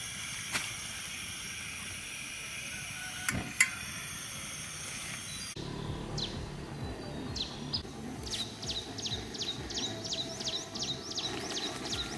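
Portable gas camping stove hissing steadily under a lidded pot, with two clicks, the louder about three and a half seconds in. Then, from about six seconds in, a bird calling in a quick run of short, high, falling notes.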